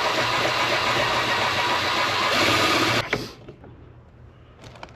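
Power drill with a step drill bit running under load, cutting out the actuator hole in the tour pack shell; it stops about three seconds in, followed by a few faint knocks.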